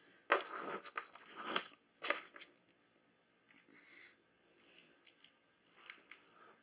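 Handling noise of a notebook and pens being moved about on a table during the first two seconds, then faint, scattered scratches of a pen writing on the paper page.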